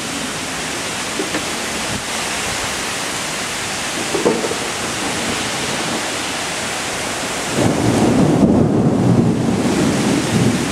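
Heavy thunderstorm rain pouring steadily. About three quarters of the way in, a louder low rumble of thunder sets in and keeps going.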